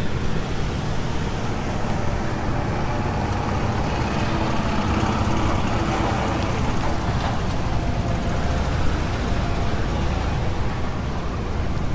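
Engine running steadily, a continuous low rumble.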